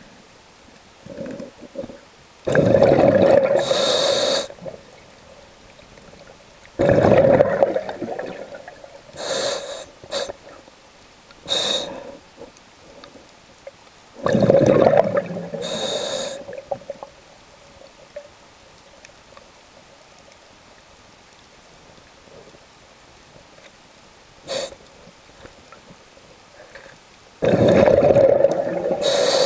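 Scuba diver breathing through a regulator underwater: bursts of exhaled bubbles with a hiss of air, four big breaths and a few smaller ones, with a long gap of about ten seconds in the second half.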